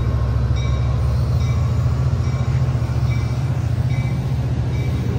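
Amtrak California F59PHI diesel locomotive and its bilevel passenger cars rolling along a station platform: a steady deep diesel rumble with wheel and rail noise. Over it, a locomotive bell rings at an even pace, a little faster than once a second.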